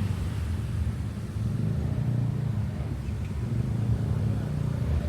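Car on the road: a steady low rumble of engine and road noise.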